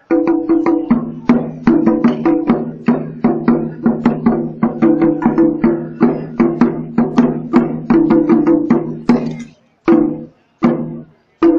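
Ensemble of Chinese barrel drums beaten with sticks in a fast, loud rhythm. The rhythm breaks off near the end, followed by a few single strokes.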